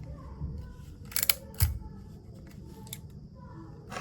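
Hand crimping tool clicking as it crimps an RJ45 plug onto an Ethernet cable: two quick clicks just after a second in, and another about half a second later.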